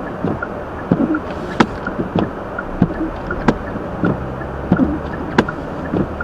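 Steady road and tyre noise inside a Hyundai Elantra's cabin while it drives on snowy streets. A sharp knock repeats about every two seconds, each followed by a short lower swish.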